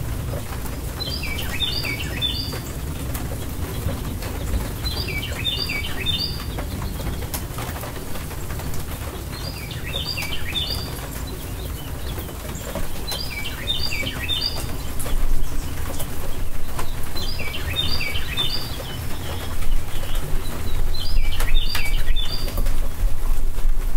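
A songbird repeating a short phrase of quick, high, falling notes, six times about every four seconds. Underneath is a steady hiss and low rumble of rain, which grows louder in the second half.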